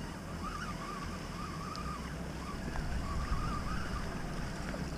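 Water sloshing against a moving kayak's hull over a low rumble of wind on the microphone, with a faint wavering high tone that comes and goes.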